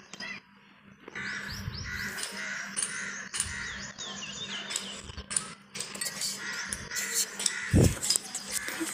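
Crows cawing over and over, harsh calls with quick chirps mixed in. A single dull thump near the end.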